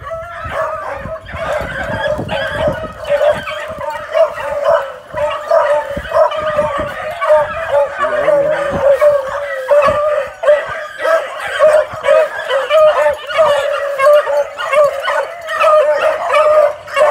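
Beagle puppies baying and yipping nonstop, their high calls overlapping as they search a brush pile.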